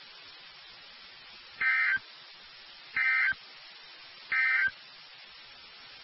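Emergency Alert System SAME data tones sent three times: the end-of-message signal that closes a NOAA Weather Radio alert. Each burst is a short digital buzz about a third of a second long, the three coming about 1.3 seconds apart over a faint steady radio hiss.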